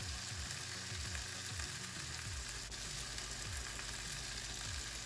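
Fresh green beans, carrots, onions and cherry tomatoes sizzling steadily in bacon grease in a hot frying pan.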